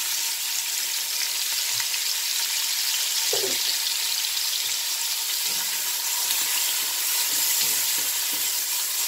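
Diced peppers, onion and garlic sizzling steadily in olive oil in a stainless steel pot, a sofrito gently frying over low heat. From about halfway through, a spatula stirs and scrapes through it in irregular strokes.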